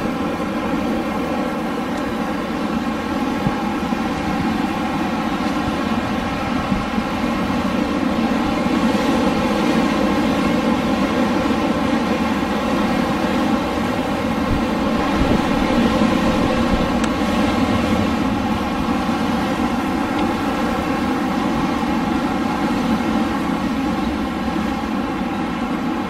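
Winter wind blowing steadily, a low, even rushing noise that grows a little louder around the middle.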